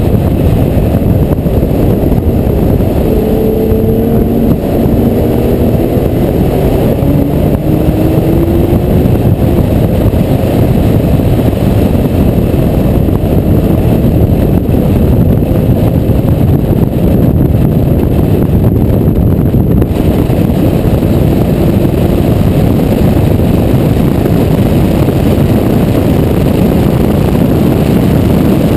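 Porsche 991 Carrera GTS's naturally aspirated 3.8-litre flat-six running hard at track speed, its note climbing several times in the first ten seconds. Heavy wind and road noise buffet the outside-mounted microphone.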